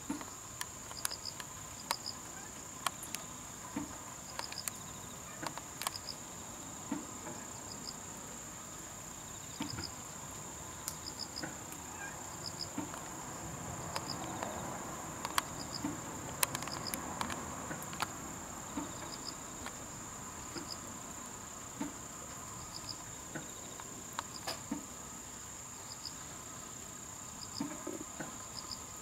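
Outdoor insects: a steady high trill runs throughout, with a short double chirp every second or two and scattered faint clicks.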